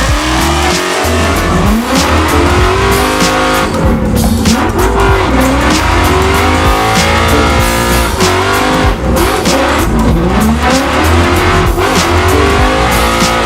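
Drift car engines revving up and down between gear changes, with tyre squeal, over backing music with a heavy bass line.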